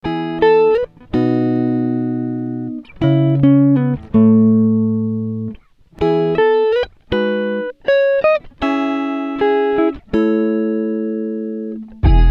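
Guitar music: slow chords struck one after another, each left to ring and fade, with short sliding notes between them.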